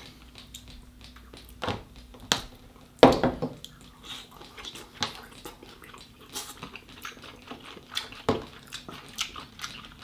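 Close-up eating sounds: king crab meat being chewed, with scattered short clicks and cracks of shell being picked apart by hand, and one louder smack about three seconds in.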